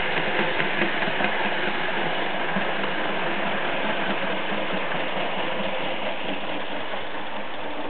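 Märklin model E 40 electric locomotive and its freight wagons running on the model railway track: a steady rolling whir and rumble, with a few light clicks in the first second, growing slightly fainter.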